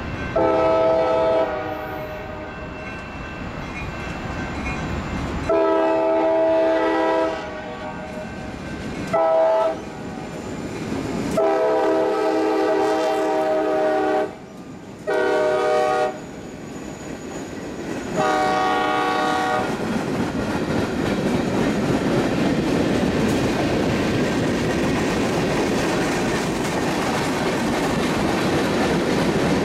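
CSX diesel locomotive sounding its multi-tone air horn in six long and short blasts for a grade crossing. Then the train rolls over the crossing, and the rumble and wheel clickety-clack of the passing tank cars grow steadily louder.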